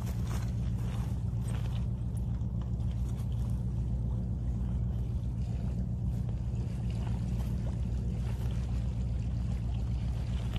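A steady low rumble that does not let up, with faint small scrapes and knocks now and then.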